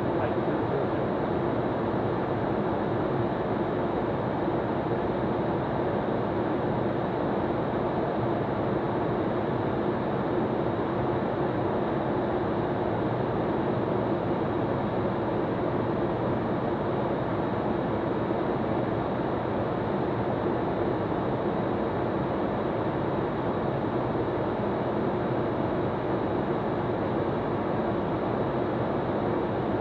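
Steady in-flight cockpit noise of an Eclipse 500 light jet: airflow over the cabin and its two Pratt & Whitney Canada PW610F turbofans make an even rush with a constant drone underneath, unchanging throughout.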